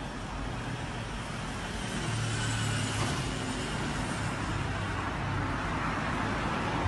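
City street traffic noise: a steady hum of passing road vehicles, with a vehicle's low engine drone growing louder about two seconds in and fading a few seconds later.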